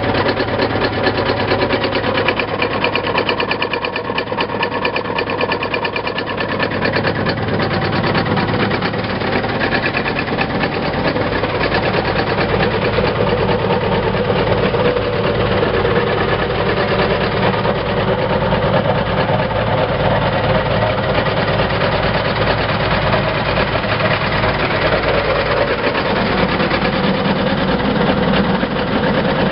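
Engine of a Rosco RA 200 asphalt repair machine running steadily at a constant speed. Its tone shifts slightly as the listening point moves around the machine.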